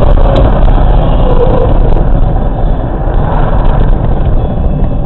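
Steady, loud low rumble of a vehicle driving, with no sharp impacts.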